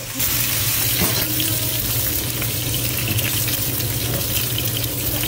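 Chicken thighs sizzling in oil in a frying pan, a steady hiss with a low steady hum underneath.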